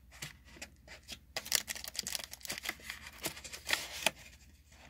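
Foil booster packs crinkling and rustling as a row of them is worked up out of a cardboard booster box by hand, with irregular sharp crackles and ticks, the strongest a few seconds in.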